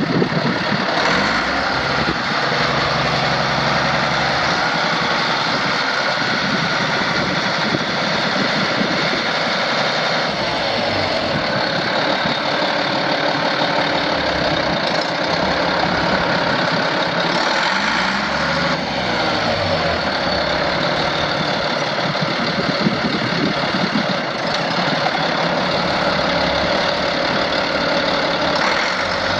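Deutz BF6L513R six-cylinder air-cooled turbo diesel of a 1989 Deutz Allis 9170 tractor, running steadily at an even level.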